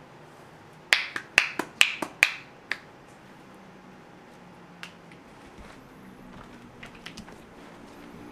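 The masseuse's hands make a quick run of about seven sharp snaps, beginning about a second in and lasting some two seconds, followed by a few faint clicks.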